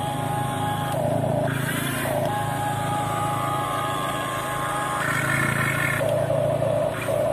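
Huina 1550 RC excavator's electric gear motors whining as the upper body slews round and the boom and arm move. The pitch and mix of the whine change every second or so as different motors cut in and out.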